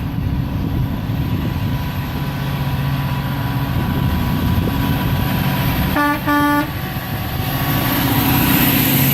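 International ProStar day cab truck's horn giving two short blasts about six seconds in, the second a little longer, each a single steady pitch, over the rumble of the truck's engine and road noise, which grows louder near the end.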